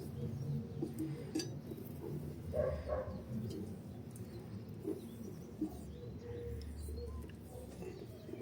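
Faint bird calls, with a few small clicks.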